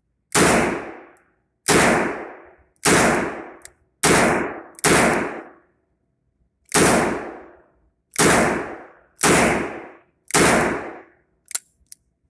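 H&R Model 923 .22 LR revolver fired nine times in double action at an uneven pace, roughly one shot every second or so, each shot with a short ringing tail. Two faint clicks follow near the end.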